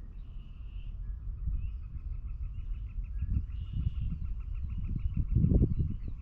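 Spring peepers calling in a chorus: a fast run of repeated high notes, about five a second, with short rising peeps above it. Low rumbling noise under the calls is loudest about five seconds in.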